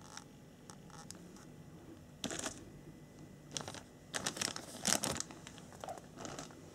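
Clear plastic parts bags crinkling as they are handled, in several short bursts, with the longest run about two thirds of the way through.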